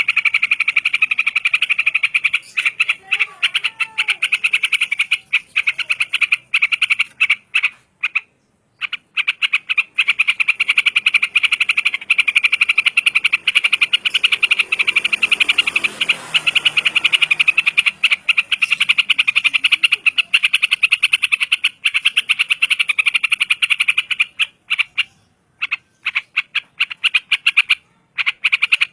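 An animal call made of a fast, rattling trill of clicks, held in long runs with short breaks.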